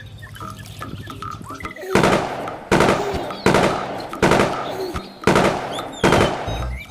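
Six loud gunshot-like bangs, one about every 0.8 s from about two seconds in, each dying away before the next.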